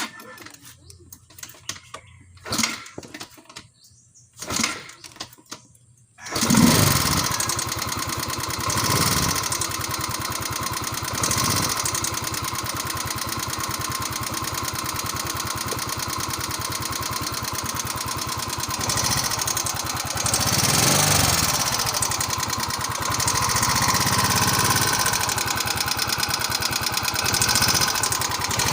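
A few knocks, then about six seconds in a Yamaha Mio scooter's single-cylinder four-stroke engine starts and runs steadily, with a rapid ticking and a few brief swells of revs. The ticking is the valve ticking noise.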